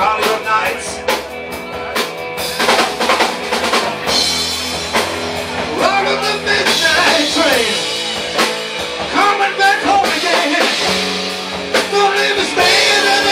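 Live rock band playing: electric guitars, bass guitar and drum kit, with a lead line that bends up and down in pitch over the beat.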